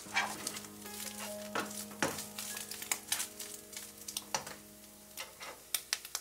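Whitebait sizzling in olive oil in a nonstick frying pan, stirred with a slotted spatula that scrapes and taps against the pan many times at an uneven pace.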